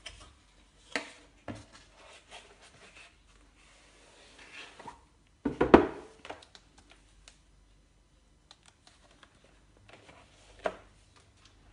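Cardboard packaging and a large paperback photo book being handled: cardboard flaps knocking and paper sliding, with a cluster of heavier thumps about halfway through, the loudest sound. Near the end a thick page is turned, with a soft knock.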